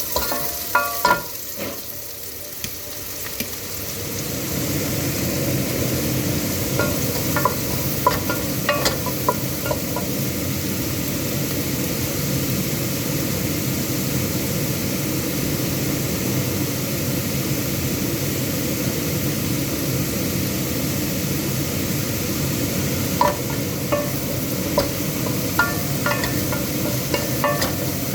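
Chopped onion sizzling in hot oil in a pan as it is sautéed toward translucent. The sizzle swells about four seconds in and then holds steady, with short clicks of a utensil against the pan as it is stirred, a few near the start, around nine seconds in and more often near the end.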